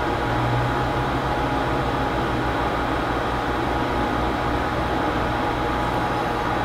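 Steady hum with fan noise from running electronic test equipment: several low steady tones under an even hiss, unchanging throughout.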